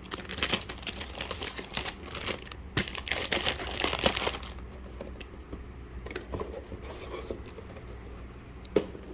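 Packaging being handled, crinkling and crackling densely for about four and a half seconds, then quieter rustling with scattered small clicks and one sharp click near the end.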